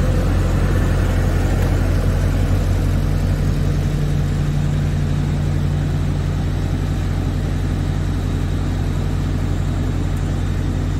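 4 HP twin-bag dust collector's electric motor and blower running in a test run, a steady, even hum.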